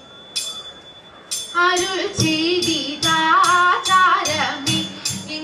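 Margam kali song: a group of girls' voices singing together in Malayalam, coming in about a second and a half in, over a rhythmic beat of sharp, ringing percussion strokes that keep time with the dance.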